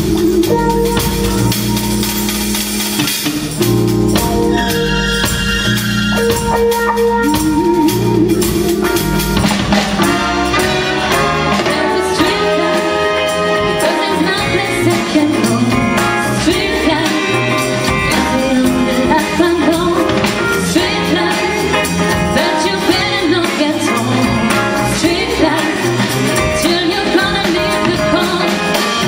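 Live band music, with a woman singing lead into a microphone over the band from about ten seconds in.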